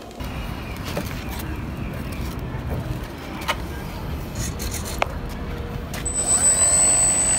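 Low outdoor rumble with a few light clicks, then about six seconds in the RC plane's electric motor and propeller spin up: a steady high whine joined by rising tones, getting louder.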